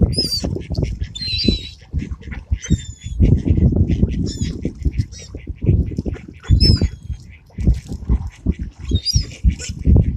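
A flock of birds squawking with short, high, falling calls, many overlapping, through a loud uneven low rumble with thuds.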